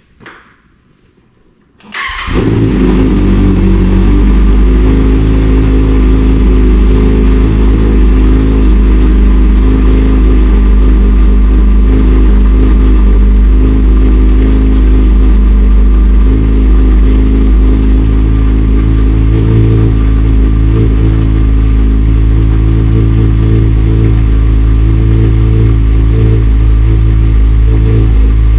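Kawasaki ZX-6R inline-four motorcycle engine starting about two seconds in, then running loud and steady at idle through its exhaust.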